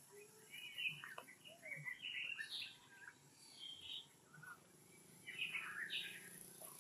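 Birds chirping and calling in short, overlapping phrases, louder in a few bursts.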